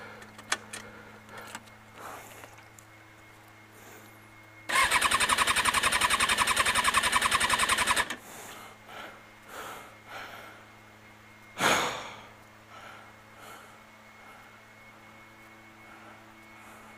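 Kawasaki ZX-6R's electric starter cranking the inline-four engine for about three seconds with an even, rapid chugging, without the engine catching, because the tipped-over bike's tip-over sensor has cut it out. A brief loud rush of noise follows about four seconds later.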